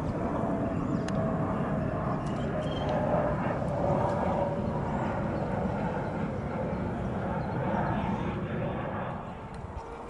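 Distant engine drone over a steady low rumble, its faint tone falling slightly in pitch over the first few seconds.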